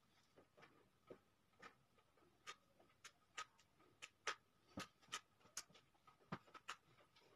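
Ink brush tapping lightly and irregularly, about fifteen quick taps, with a faint steady hum underneath.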